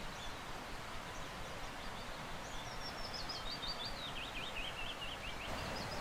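Willow warbler singing one phrase of high notes that step down in pitch over about three seconds, starting about two and a half seconds in, over a faint steady hiss of forest background; another phrase begins near the end.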